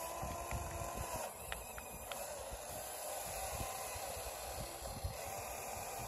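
Huina RC model excavator's small electric motors whining faintly as its boom moves, with a few light clicks about a second and a half in. Wind buffets the microphone throughout with a steady hiss and low rumbles.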